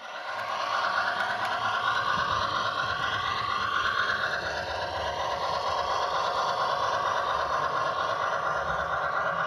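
HO scale model of a CN 2-6-0 steam locomotive running along the track, a steady mechanical hum with a rattling clatter. It cuts in abruptly at the start.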